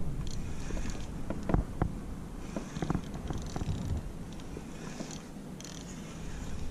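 Penn spinning reel being cranked to bring in a hooked fish: a low whirring purr from the turning handle and gears, with scattered small clicks.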